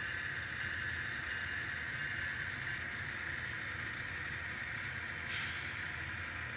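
N scale model train locomotive running on the layout: a steady hum and whir. A brighter hiss joins about five seconds in.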